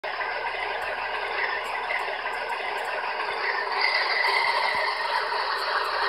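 Onboard DCC sound of HO scale MTH ALCO FA-1/FB-1 model locomotives: a recorded diesel engine running, played through the models' small built-in speakers. It is steady, thin and rattly, with no deep bass.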